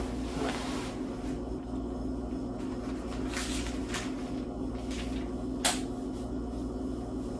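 Thin Bible pages being leafed through by hand: a few brief papery flicks and rustles, the sharpest about six seconds in, over a steady low hum.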